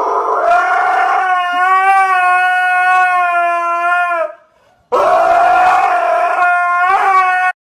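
Two long, steady howls: the first rises at the start and is held for about four seconds, the second, after a short pause, lasts about two and a half seconds and stops abruptly.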